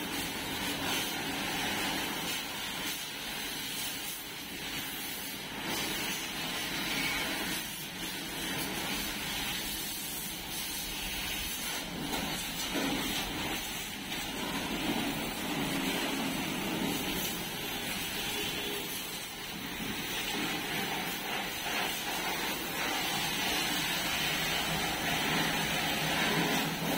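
High-pressure washer spraying a steady jet of water onto a vehicle's body, a continuous hissing spatter with no break.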